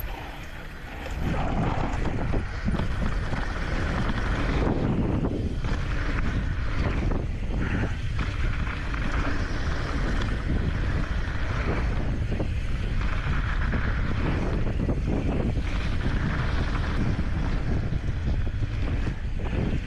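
Wind buffeting the microphone and tyre rumble from a mountain bike descending a dirt trail, with frequent small knocks and rattles from the bumpy ground, getting louder about a second in as speed picks up.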